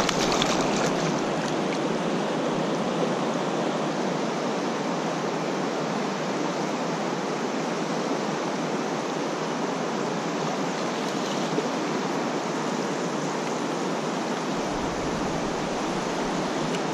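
Steady rush of a fast, shallow creek flowing over its stony riffles, with splashing at the surface close by in the first second. A deeper rumble joins in near the end.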